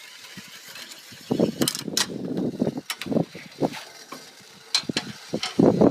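Tram-line rigging working as an antenna is lowered: irregular rattling and clicking of rope and pulley hardware, starting about a second in.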